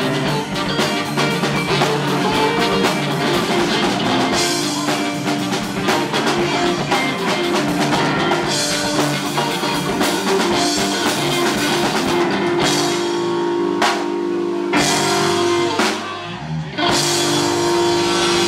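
Live rock band playing: drum kit, electric guitar and keyboard in a steady groove. About two-thirds of the way through the cymbals drop out, and near the end the band thins out for about a second before coming back in full.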